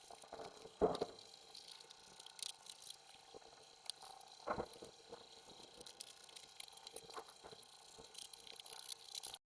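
Faint, scattered small knocks and clicks, with a louder knock about a second in and another about four and a half seconds in.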